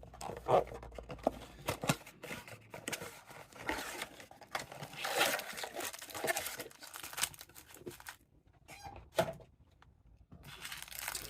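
A cardboard trading-card blaster box being torn open and its wrapped card packs handled: a run of tearing and crinkling rustles with small clicks, going quieter for the last few seconds.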